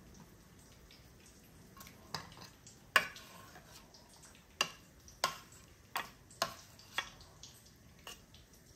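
Metal slotted spoon clinking against enamel dishes while a croquette is turned in flour and beaten egg: about eight sharp, irregular taps, the loudest about three seconds in.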